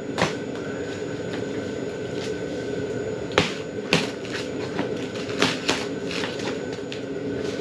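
A large cardboard shipping box being handled on a concrete floor: a handful of sharp knocks and scrapes, loudest about three and a half to four seconds in and again near five and a half seconds, over a steady low hum.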